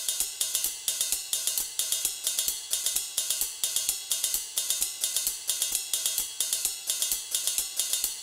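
Intro theme music with a fast, steady drum beat, led by hi-hat and cymbal over a low kick drum.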